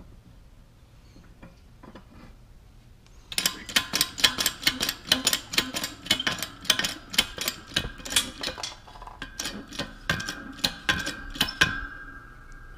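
Camera and its mount being handled and repositioned close to the microphone: after about three seconds of quiet, a fast, uneven run of clicks and knocks, with a faint steady whine near the end.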